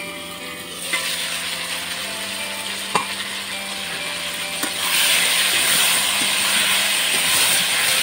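Eggplant and potato pieces sizzling in hot oil in an uncovered wok, the hiss growing and loudest from about five seconds in, with a single light knock about three seconds in.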